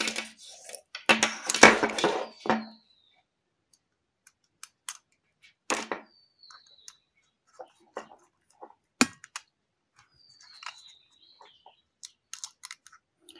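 Loud rustling and knocking as the wire and plastic board are handled for the first couple of seconds. After that come scattered small clicks and scrapes of a screwdriver turning terminal screws on a plastic wall socket.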